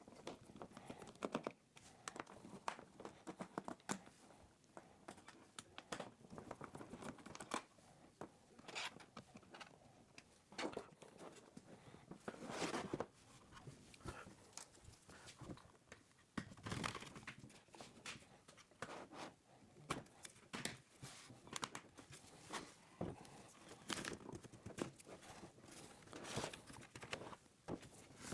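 Faint, irregular handling sounds as a laptop is worked on by hand: scattered small plastic clicks and knocks, with a few short crinkling, tearing-like rustles.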